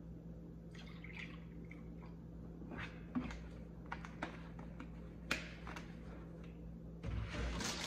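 Milk pouring from a plastic gallon jug into a ceramic bowl, then a few light knocks as the jug is set down and handled. Near the end a plastic bag of cereal starts crinkling, with a couple of dull thumps.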